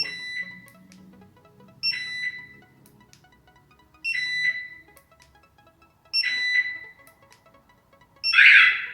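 StarLine car alarm siren giving short high-pitched double chirps about every two seconds as its volume is stepped up in the programming menu. The last chirp is the loudest.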